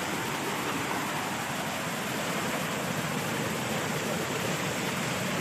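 Small waterfall pouring down between boulders in a steady rush, splashing onto a person bathing under it.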